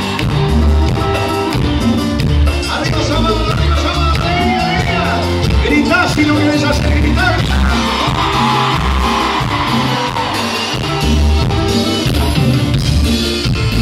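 Live band music on stage: electric guitar over a heavy pulsing bass beat, picked up from the audience with singing voices mixed in.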